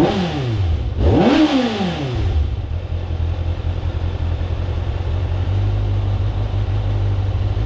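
Stock exhaust of a 2024 Kawasaki ZX-6R's 636 cc inline-four: a throttle blip dying away at the start, then a second quick rev about a second in that falls back within another second. After that the engine settles to a steady idle.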